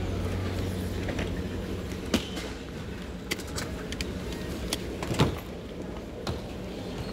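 Sharp clicks and knocks from a hard-shell suitcase being handled and its handle pulled up, the loudest knock about five seconds in, over a steady low background rumble.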